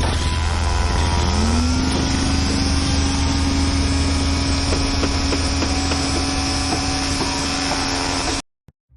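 A large engine running with a heavy low rumble; about a second in, a whine rises in pitch and then holds steady, as when an engine spools up. It cuts off abruptly near the end.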